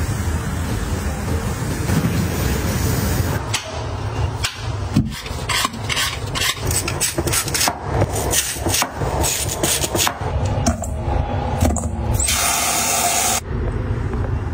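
A kitchen knife slicing through lotus root and knocking on a wooden cutting board: a run of sharp, uneven chops starting a few seconds in. Near the end, about a second of running water as the slices are rinsed. The first few seconds hold a steady low rushing noise.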